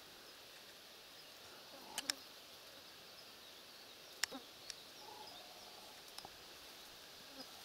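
Quiet outdoor evening ambience: faint birdsong over a low steady background, with a few sharp clicks about two seconds in and again just after four seconds.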